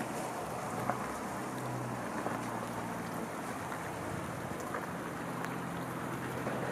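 A car rolling slowly through a flooded road: tyres swishing steadily through standing water and slush, over a low engine hum.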